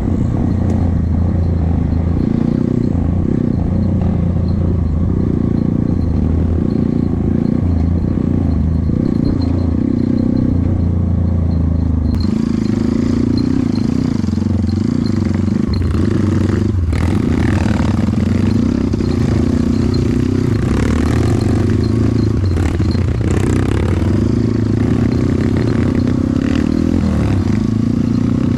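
Trail motorcycle engine running while the bike is ridden over rough ground, its note shifting now and then. Knocks and rattles from the bike and the terrain come through, and a hiss grows louder about halfway through.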